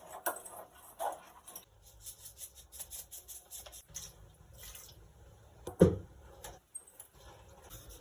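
Light kitchen clatter of pots and utensils being handled: scattered small clicks and knocks, with one loud knock about six seconds in.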